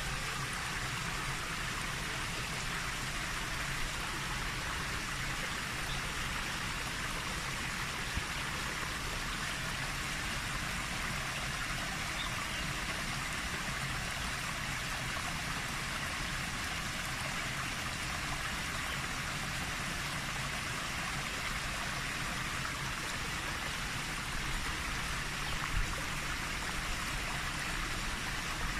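Steady rushing of flowing water: an even hiss over a low rumble that holds level throughout.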